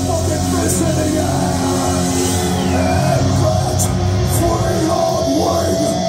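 Heavy metal band playing live and loud: distorted electric guitars, bass and drums.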